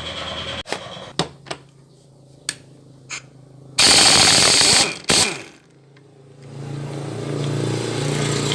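Tool work on a motorcycle engine head. A few sharp metallic clicks, then about a second-long loud burst from an air tool and a second short burst just after, as the cam sprocket fastenings are undone. A low steady hum rises near the end.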